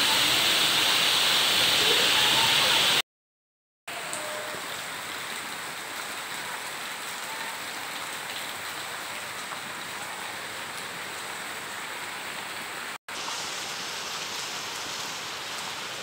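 Steady rain falling on tree leaves, an even hiss. About three seconds in it cuts out for a moment and comes back quieter, with another brief dropout near the end.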